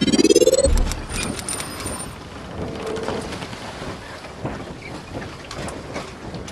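Logo-intro sound effect: a rising sweep that ends in a deep boom under a second in, followed by a crackling, rain-like hiss with a few brief high tones.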